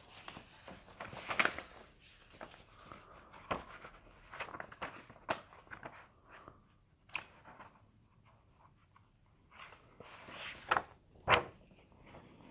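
Quiet rustling and light knocks of books being handled and their pages turned, with louder handling noises near the start and again near the end.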